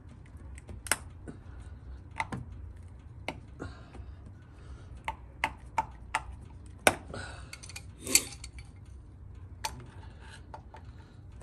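Hose clamp pliers and a spring-band hose clamp on a coolant hose, giving about a dozen irregular sharp metallic clicks and clinks, two of the loudest a little past the middle, over a low steady hum.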